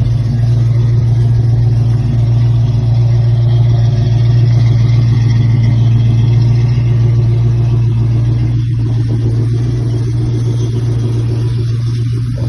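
Ford 302 small-block V8 crate engine in a 1967 Mustang idling steadily after a fresh start, a constant low hum.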